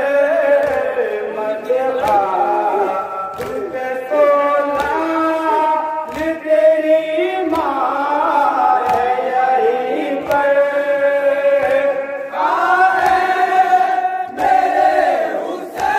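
Male reciter chanting a noha (Urdu mourning lament) into a microphone, with a crowd of men singing along. A sharp beat about every 1.3 s keeps time, the chest-beating of matam.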